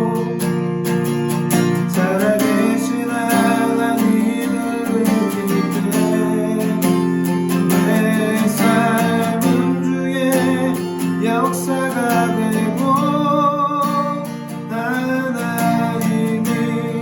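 Acoustic guitar strumming chords to accompany a voice singing a slow worship song in Korean.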